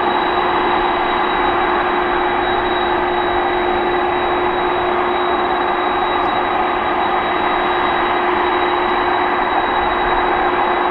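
Boeing 747-400 freighter's jet engines running at idle: a steady rushing with a constant high whine and a lower hum that hold one pitch throughout.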